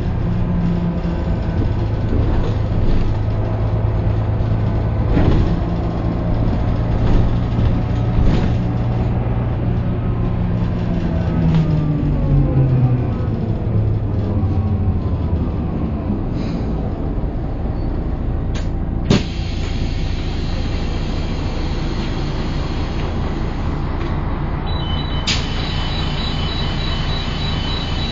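Interior sound of a MAN city bus under way: its six-cylinder diesel and ZF automatic drivetrain running, with gear whine from the hub-reduction rear axle sliding down in pitch as the bus slows. A sharp click comes about two-thirds through, and a high two-note electronic beeping starts near the end.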